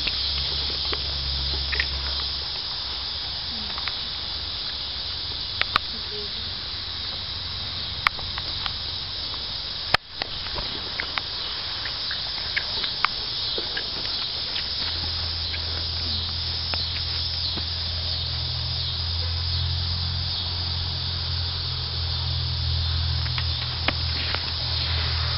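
Steady summer insect chorus, a dense high-pitched hiss, with a few sharp clicks and a low rumble in the first two seconds and again from about fifteen seconds in.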